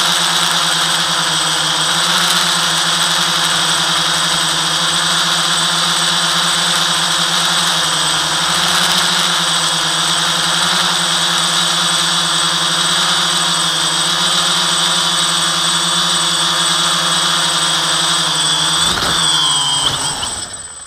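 FPV quadcopter's brushless motors and propellers whining steadily, the pitch wavering slightly with throttle. Near the end the pitch falls and the sound dies away as the motors spool down.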